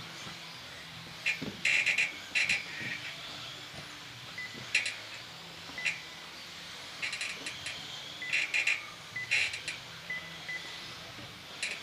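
RC 2WD buggies and short-course trucks racing on a carpet track: a steady high motor whine, broken several times by bursts of sharp clattering from the cars hitting the track edges and ramps.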